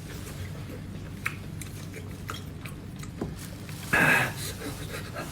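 Close-miked eating sounds: soft mouth clicks of chewing seafood, with one louder burst lasting under half a second about four seconds in.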